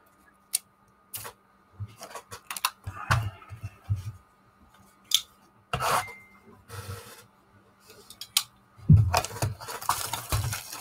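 Handling of a cardboard box of baseball trading cards: scattered light clicks and knocks, a louder knock near the middle as the box is set down, then continuous rustling and scraping from about nine seconds in as the box is opened by hand.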